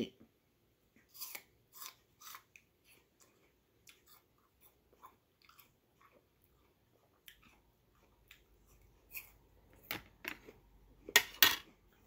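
A person chewing crisp apple pieces, with scattered short crunches and a louder burst of crunching near the end.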